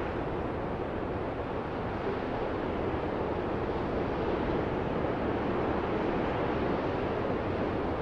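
Ocean surf: waves breaking and washing in, a steady rush that swells a little about halfway through.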